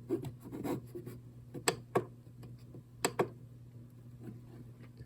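Sharp clicks of buttons being pressed on a digital alarm clock while its settings are stepped through, about half a dozen spread over the first three seconds, over a low steady hum.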